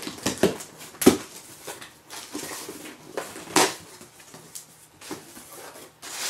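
Cardboard shipping box being opened by hand: packing tape pulled off and the flaps folded back, with rustling and a series of sharp cardboard knocks and rips, the loudest about a second in.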